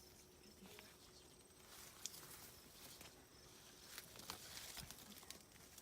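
Near silence: faint outdoor ambience with a few soft ticks and rustles and a thin high hiss.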